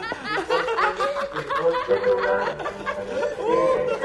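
Several people laughing at once, short quick laughs overlapping.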